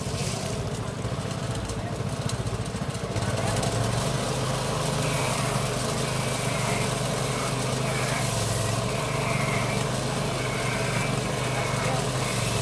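Small motorised coconut-shredding machine running with a steady hum, shredding coconut flesh as it is pressed in; it grows louder about three seconds in.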